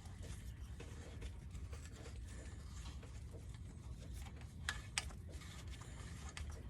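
Faint clicks and light scraping of a metal thread-repair insert and its installing tool being turned by hand into a tapped bolt hole, with two sharper clicks a little past the middle, over a steady low hum.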